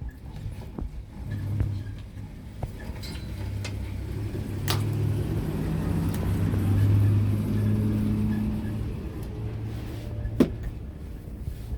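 A motor engine running with a low hum that grows louder toward the middle and then eases off. Two sharp clicks cut through it, one before and one after the loudest part.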